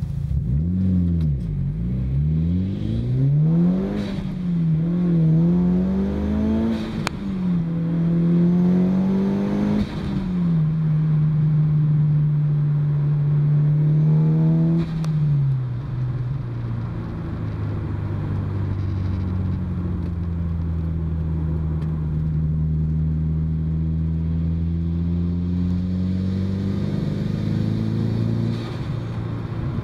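Mitsubishi Lancer Evolution VIII FQ-340's turbocharged 2.0-litre four-cylinder, heard from inside the cabin, accelerating away through the gears. The revs rise and drop at each change for about the first ten seconds. It then settles to a steady cruise, with one more drop in revs about halfway through.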